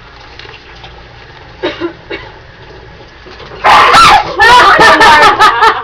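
Low room sound with a few faint knocks, then about two thirds in, sudden loud high-pitched screaming of fright that wavers up and down in pitch.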